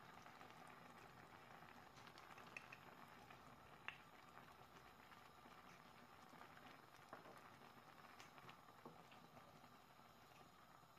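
Faint bubbling of a curry boiling on full heat in a pan, with a few light clicks scattered through.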